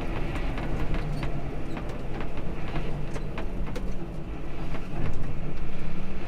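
Tractor engine running steadily, with frequent short rattles and clicks, getting louder near the end.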